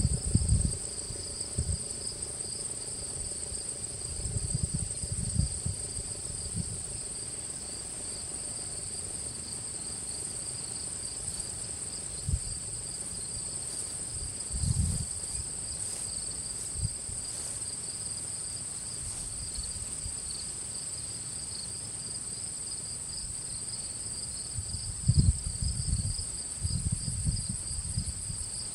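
Steady chorus of insects trilling shrilly at two high pitches, with brief low rumbles now and then.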